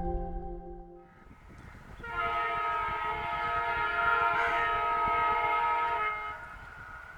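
WDG-4 diesel locomotive horn sounding one long blast from about two seconds in, a steady chord of several pitches held for about four seconds, then falling away to a fainter lingering tone. Intro music fades out in the first second.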